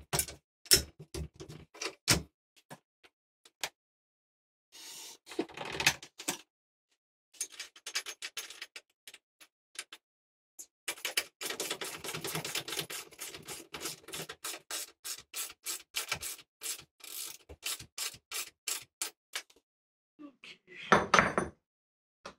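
Metal clicking, scraping and clattering from hands-on assembly work on a portable table saw and its stand. A long run of quick, fairly even clicks fills the middle, and a louder clatter comes near the end.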